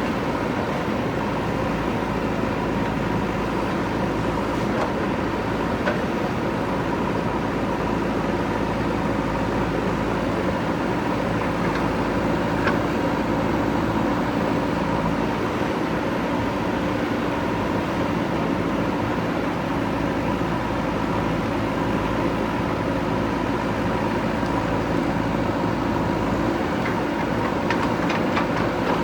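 JCB 3DX backhoe loader's diesel engine running steadily under work, with a few faint knocks.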